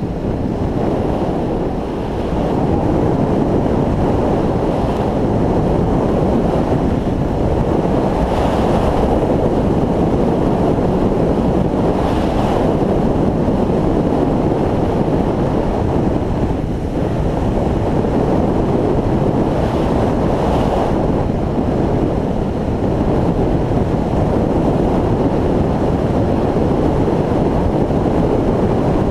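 Steady rush of wind on the microphone of a camera mounted on a moving motorcycle, at road speed, with road noise mixed in.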